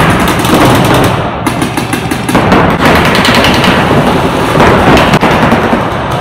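Paintball markers firing in fast strings from several players at once, a dense run of overlapping shots.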